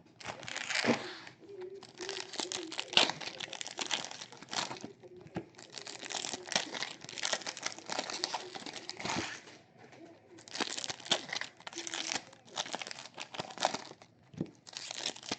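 Trading card packs being handled and opened: wrappers crinkling and tearing in irregular bursts with short pauses between them.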